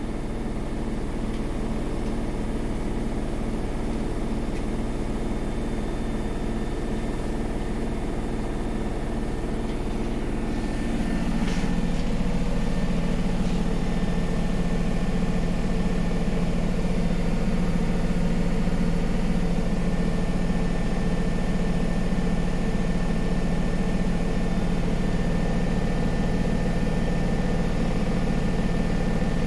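Samsung WW80R421HFX washing machine running, its motor and drum making a continuous hum; about eleven seconds in the hum turns louder and steadier, as the drum settles at a higher speed.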